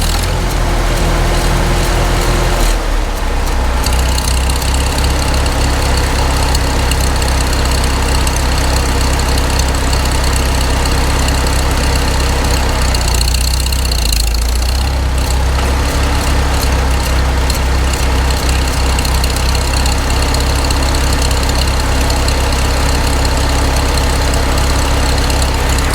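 Farmall Super M tractor engine running steadily under load as it pulls a tumblebug scraper through dirt. The engine note shifts briefly about three seconds in and again about halfway through.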